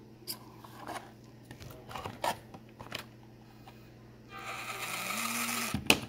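Element RC Enduro24 mini crawler's small electric drive motor and gears whirring as the throttle spins the wheels in the air, rising in pitch and then holding for about a second and a half near the end. A few light clicks of handling come before it, and a sharp click as it stops.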